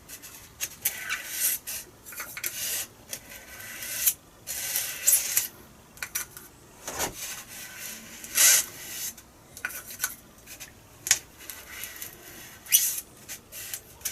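Irregular rubbing and scraping strokes as a carbon fibre rod is worked along a slot in a foam wing to push glue into the crack.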